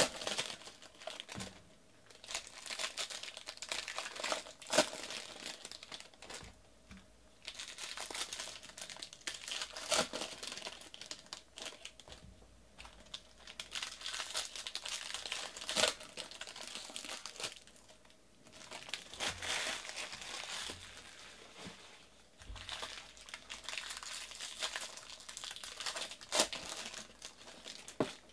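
Wrappers of 2018 Bowman Draft trading-card packs crinkling and tearing as the packs are ripped open, in bursts with short pauses and a few sharp snaps.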